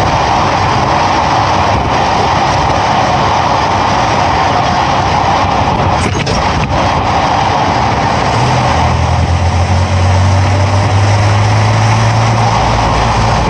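Loud, steady tyre and wind noise under a moving Nissan truck, picked up beside the rear axle, with a few brief knocks about six seconds in. A steady low engine hum comes in over the second half.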